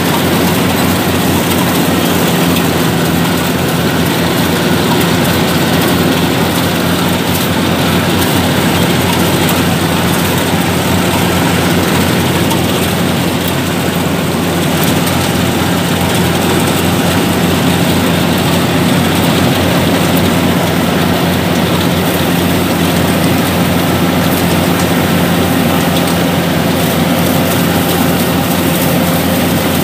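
Yanmar 850 combine harvester running steadily while cutting rice, heard from the operator's seat. A constant diesel engine drone sits under the continuous rush of the cutting and threshing machinery.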